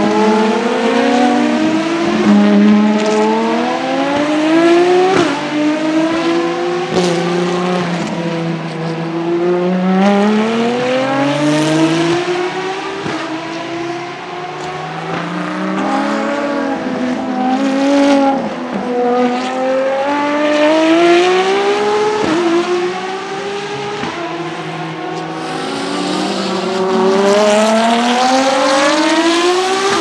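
Ferrari FXX K EVO V12 engines accelerating hard through the gears as several cars pass: each engine's pitch climbs, then drops back at every upshift, with overlapping runs from more than one car and a few sharp cracks.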